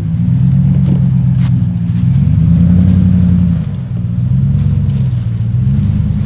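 Off-road vehicle engine revving under load as it works over a rock obstacle, the revs rising and easing off through a few throttle changes.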